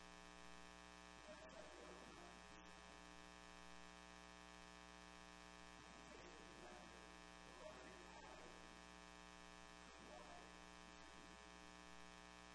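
Near silence: a steady electrical buzz-hum with many even overtones. A few faint, brief, indistinct sounds come about a second in, around six to eight seconds, and near ten seconds.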